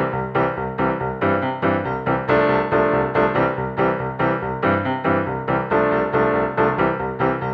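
Background music: a piano tune with a steady rhythm of struck notes.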